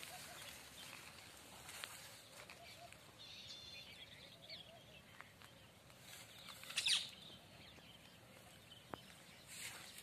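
Faint rural outdoor ambience with a few thin bird chirps and scattered small clicks, and one brief louder noise about seven seconds in.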